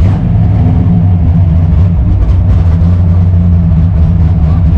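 Drift car's engine running loud at a fairly steady pitch, heard from inside the car's cabin.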